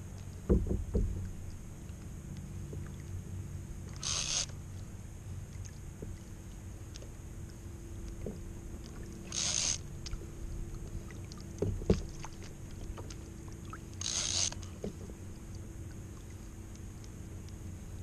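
Water slapping against a fishing kayak's hull in three short splashes about five seconds apart, over steady sea noise, with a couple of sharp knocks on the kayak.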